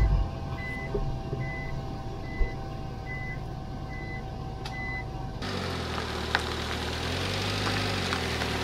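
Short, high electronic beeps repeat about every 0.7 s over a steady hum. About five seconds in the sound cuts to a Subaru Sambar van's small four-cylinder engine idling steadily, heard low at the rear by the exhaust.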